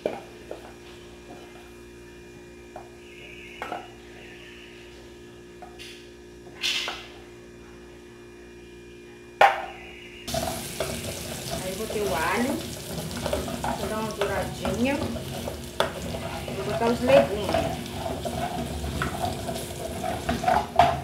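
A wooden spoon scraping fried meat out of an aluminium frying pan, with a couple of sharp knocks against the pan. About ten seconds in, the sound switches abruptly to garlic sizzling in hot oil in a pan on a gas stove, a steady, louder hiss.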